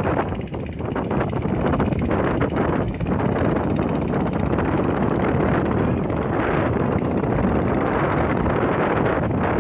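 Motorboat engine running steadily under a loud rumble of wind buffeting the microphone, dipping briefly about half a second in and again near three seconds in.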